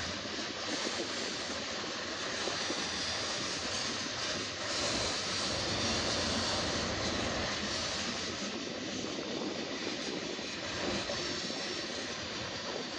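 Freight train of tank cars and covered hoppers rolling past on steel wheels and rails: a steady rolling rumble and rush with no separate knocks or squeal, a little brighter about five seconds in.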